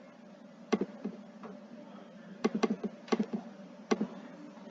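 Computer mouse clicking about seven times, several in quick double-click pairs, while selecting an image file.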